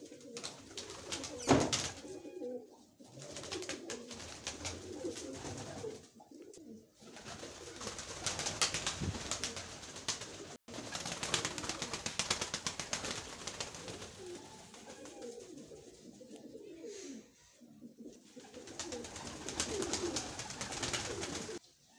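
Fantail pigeons cooing repeatedly in short, low, wavering coos, with one sharp clap about a second and a half in.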